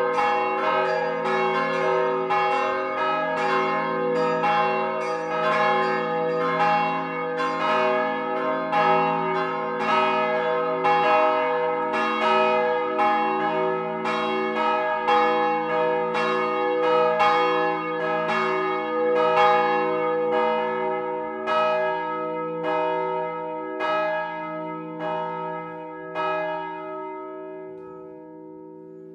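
Several swinging bronze church bells ringing together in a peal, strike after strike overlapping. Toward the end the strikes thin out and stop about 27 seconds in as the peal comes to rest, leaving the hum of the bells fading away.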